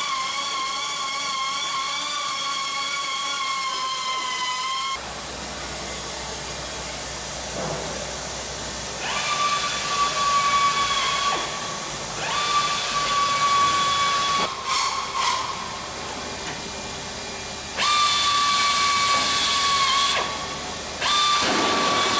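High-pitched whine of a compressed-air tool working out plug rivets, with a hiss of air under it. It runs steadily for about five seconds, then comes in four shorter runs of two or three seconds each, with a few clicks in one of the pauses.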